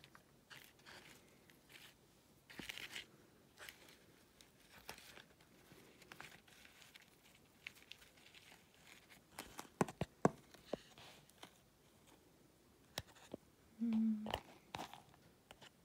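Fingers sifting through dry leaf and paper worm bedding in a plastic tub: scattered rustling and crinkling, with a few sharp clicks about ten seconds in. A short hummed voice sound near the end.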